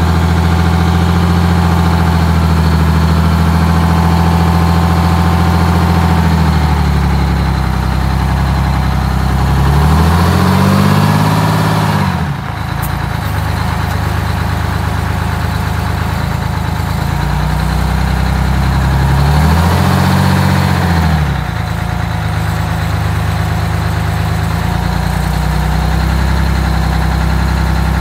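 GMC 4104 bus's two-stroke Detroit Diesel 6-71 running at low revs as the bus is slowly backed up. The revs rise and fall back about ten seconds in, and again about twenty seconds in.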